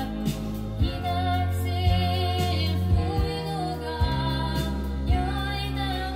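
A vinyl LP playing on a Sanyo TP 388 turntable: a song with a singer over bass, with a drum beat about once a second.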